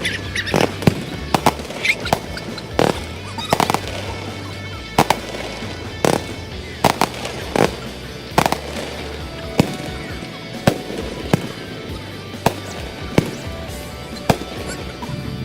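Fireworks display: a rapid, irregular series of sharp explosive bangs, crowded together at first and more spaced out after about ten seconds, with music playing underneath.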